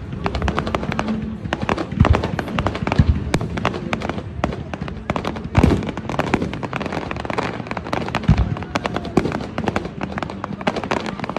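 Aerial fireworks display: a dense, continuous run of rapid cracks and pops from bursting shells, with several deep booms, the heaviest about two, three, five and a half and eight seconds in.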